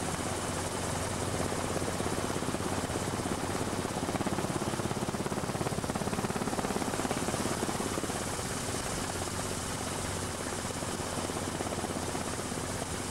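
Helicopter in flight, a steady engine drone with a fast, even rotor beat, strongest around the middle.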